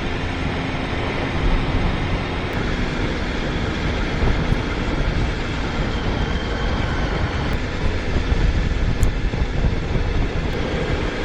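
Motorcycle on the move: a steady low engine drone under a constant rush of wind and road noise.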